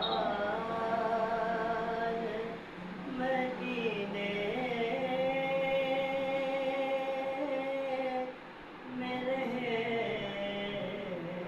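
A man's voice singing a naat unaccompanied, drawing out long held notes with slides between pitches. There is a short pause for breath about eight seconds in, then the singing resumes.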